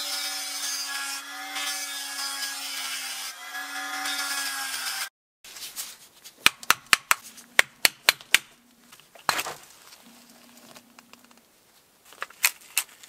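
A small handheld rotary tool running steadily for about five seconds against the rusted end cap of the saw's small motor, then cutting off sharply. After a pause comes a quick run of sharp taps, about five a second, then a single knock and a few more taps near the end as the end cap is worked free of the motor can.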